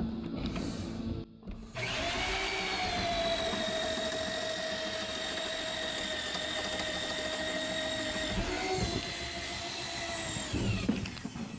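Heavy electric drill starting about two seconds in and running steadily for about nine seconds while boring holes through wooden framing studs for electrical cable. Its whine sags a little early on, lifts briefly near the end, then falls as the drill spins down.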